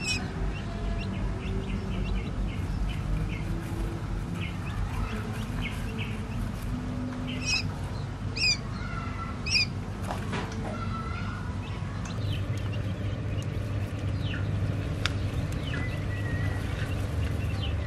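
Newly hatched quail chicks peeping: short high chirps scattered throughout, with three louder ones about a second apart near the middle, over a steady low hum.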